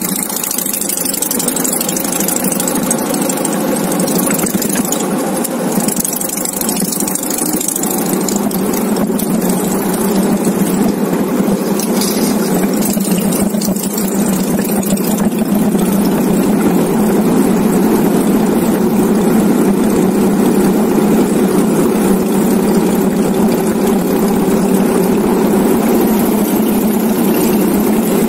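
Motorcycle engine running steadily while riding, with wind on the microphone; the engine's hum grows stronger and steadier about eight seconds in.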